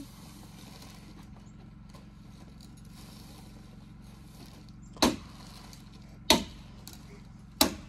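House wrap being fastened to the cabin wall with a stapler: three sharp snaps about a second and a quarter apart, over a low steady hum.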